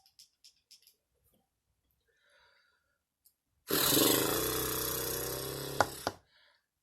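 A person's long, loud burp, lasting about two and a half seconds, starting a little past halfway through and fading toward its end. A few faint clicks come in the first second.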